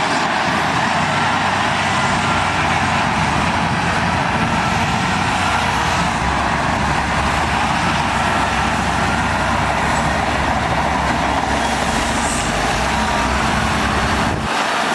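Diesel engines of heavy earthmoving machinery running under work at a sand fill, a loud, steady machine noise throughout.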